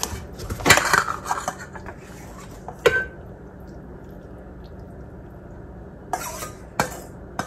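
Metal tongs and a stainless steel mixing bowl clinking and knocking as salad is lifted out, with scattered knocks early on, one short ringing clink about three seconds in, and a few more knocks near the end.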